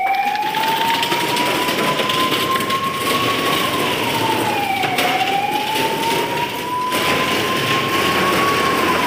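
Ambulance siren sounding a slow wail: one tone that climbs over about three seconds, then drops back over a second and a half, about every five seconds, over a steady background noise.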